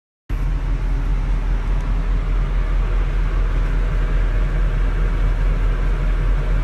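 A steady low rumble with a hiss over it, even throughout, after a moment of silence at the very start.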